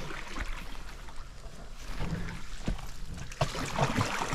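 Wooden canoe paddle pulling hard through the water, splashing, with a few short knocks in the second half.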